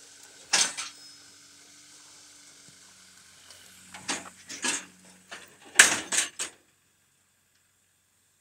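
A small car rolling off a car trailer's metal ramps onto gravel: a steady hiss with a few loud scraping crunches, then three quick ones together about six seconds in.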